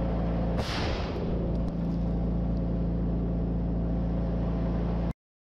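A mine going off beside a remote-controlled demining vehicle about half a second in: one sharp blast whose hiss dies away within half a second, over the vehicle's loud, steady engine drone. The sound cuts off suddenly near the end.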